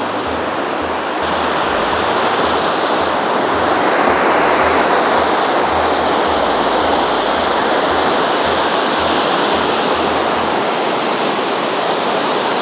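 Steady roar of rushing water from the Rhine Falls, Europe's largest waterfall. It grows a little louder about a second in and again around four seconds in.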